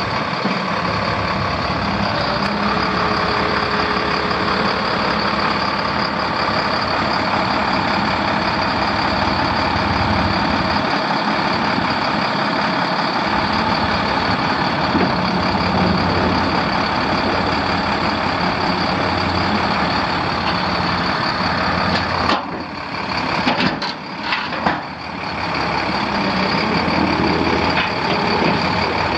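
International MaxxForce 10 six-cylinder diesel engine of a dump truck running steadily. About 22 to 25 seconds in, the sound drops away sharply a few times before it comes back.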